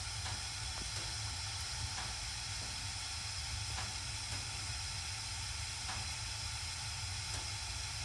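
Gas furnace burners firing with a steady low rumble and hiss, with a few faint ticks. The owner judges that the blower fan is not running.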